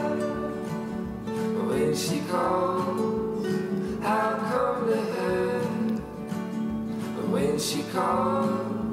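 Background song: strummed acoustic guitar with a singing voice.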